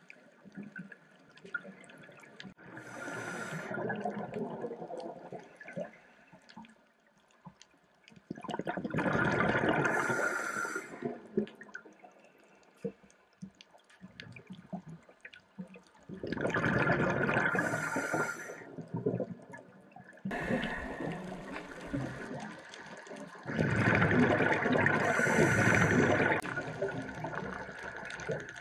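Scuba diver's regulator breathing underwater: four long rushes of exhaled bubbles, about one every seven seconds and each two to three seconds long, with quieter stretches between and faint scattered clicks throughout.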